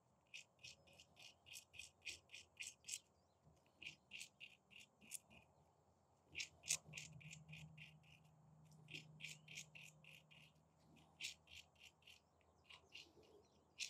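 A soft brush scrubbing the threads and base of a brass pressure-washer valve cap: faint, quick scratching strokes, about four a second, in several runs with short pauses between them.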